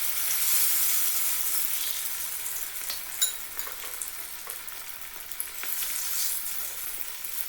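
Cornflour-coated chicken pieces deep-frying in hot sunflower oil, a steady sizzling hiss, loudest just after the start and slowly easing off. A sharp click about three seconds in, with a few fainter ones later.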